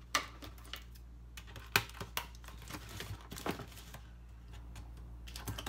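A stiff paper gift bag being handled and pulled open on a tabletop: scattered crisp paper crackles and sharp taps, the loudest a little under two seconds in.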